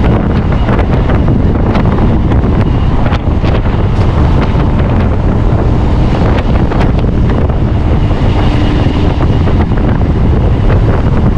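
Wind rushing over the microphone at the open door of an electric local train running at speed, over the steady rumble of the train, with scattered clicks from the wheels on the track.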